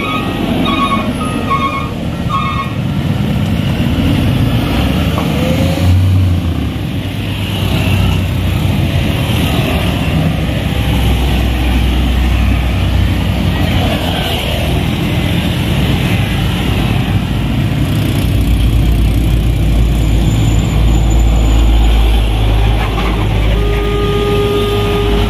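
Road traffic crossing a railway level crossing: trucks and motorcycles driving past with a steady engine rumble that grows deeper and heavier in the second half. A run of short electronic beeps sounds about twice a second at the start. Near the end the crossing's electronic warning alarm starts, a tone alternating between two pitches, signalling that a train is coming and the barriers are about to close.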